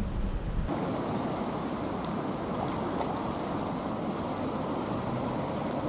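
Steady rushing of the River Severn in high flood, an even hiss that starts abruptly just under a second in.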